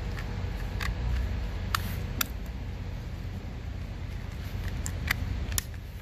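Sharp plastic clicks, about five of them, as the clips of a Mercedes W221 center-console phone keypad are pried apart from its wrist-rest housing, over a steady low rumble.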